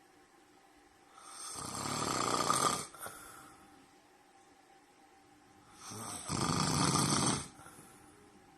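A man snoring in his sleep, way too loud: two long snores about five seconds apart, each swelling in loudness and then cutting off.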